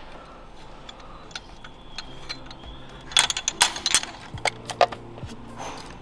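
Scattered sharp metallic clicks and clinks of a homemade injector-pulling tool and hand tools working on the fuel injectors of a BMW N53 six-cylinder, thickest about three to five seconds in.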